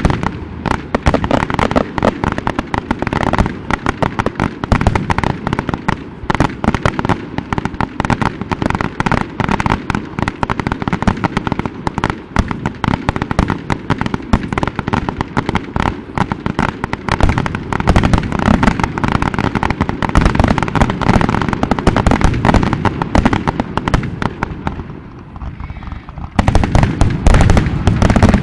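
Fireworks display: aerial shells bursting in a rapid, dense barrage of bangs. It thins out briefly about 25 seconds in, then a fresh volley starts.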